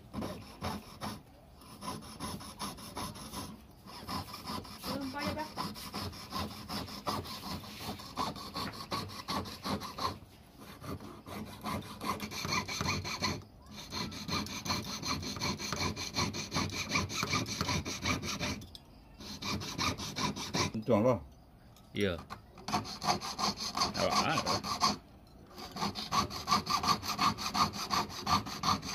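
Jeweller's piercing saw cutting through a silver ring band: quick back-and-forth rasping strokes, stopping briefly several times. The band is being cut so the ring can be turned into a pendant.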